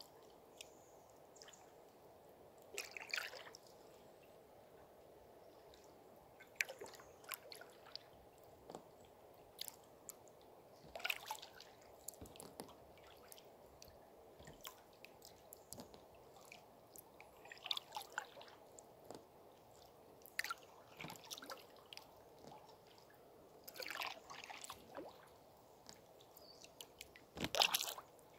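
Canoe paddle strokes in calm river water: soft splashes and drips every few seconds, over a faint steady background hush. The last stroke, near the end, is the loudest.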